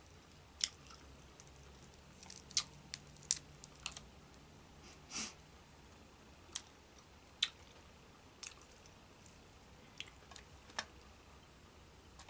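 Boiled crawfish shells cracking and snapping as they are peeled by hand: a scatter of sharp irregular clicks, with one longer wet sound about five seconds in.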